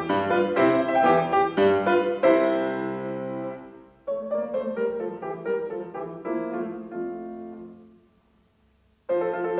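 Solo piano music. One phrase dies away about four seconds in, a quieter passage follows and fades almost to silence, and the piano starts again shortly before the end.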